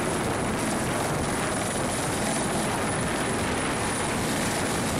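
Firefighting helicopter hovering low, its rotor and turbine engine running steadily.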